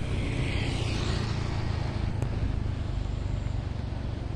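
Steady vehicle engine and road rumble with rushing air, heard from on board a moving vehicle.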